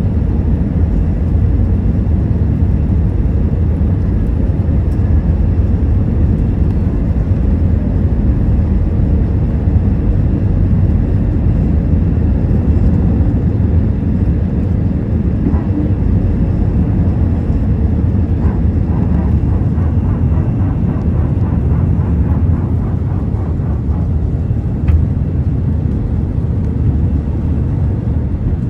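Steady low rumble of an Airbus A320-200 as heard inside the passenger cabin, with its engines running.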